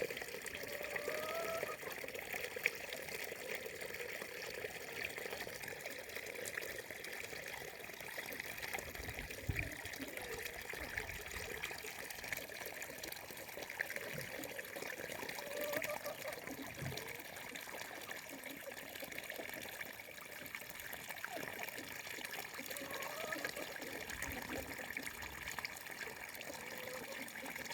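Water in a small stream babbling and trickling steadily, with a few faint gurgling tones coming and going.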